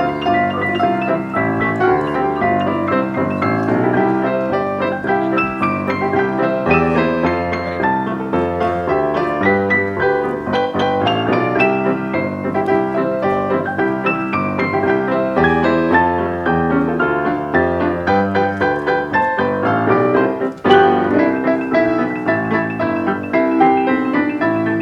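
Piano music with fast, dense runs of notes. About twenty seconds in it breaks off for a moment, then comes back in with a loud chord.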